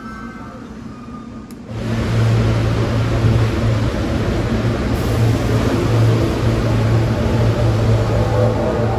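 SEPTA Silverliner electric multiple-unit commuter train running along an underground station platform: a loud, steady rumble with a strong low hum, starting suddenly about two seconds in.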